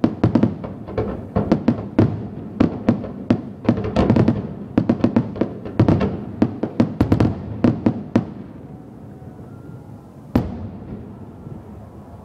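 Fireworks aerial shells bursting in a dense volley of bangs in quick succession, which thins out about eight seconds in, followed about two seconds later by one last single bang.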